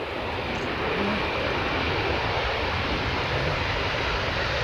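Jet noise from an Airbus A320ceo airliner landing: a steady, broad engine rush that builds over the first second and then holds.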